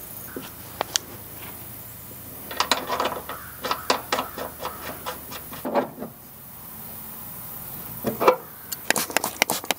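Wrench clicking and scraping on the brass service-valve caps and fittings of a mini-split outdoor unit: a string of small metallic ticks and clicks, a sharper knock about eight seconds in, and a quick run of clicks near the end.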